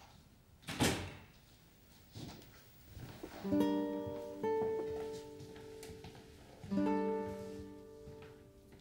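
Soundtrack music: plucked acoustic guitar chords ringing out, coming in about halfway, with a fresh chord struck near the end. A brief rushing sound about a second in.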